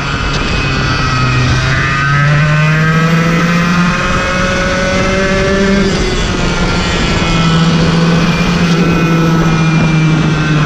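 Racing kart engine heard from the driver's seat at speed, revs rising and falling with the track. The pitch climbs over the first couple of seconds, dips about four seconds in, then climbs again and holds.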